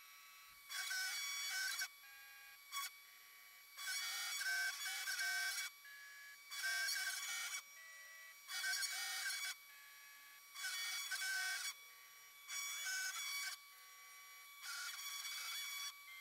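DIY CNC router engraving an aluminium dog tag with a V-bit. Spells of cutting noise about a second long alternate with quieter moves in which the machine whines at a steady pitch that changes from one move to the next.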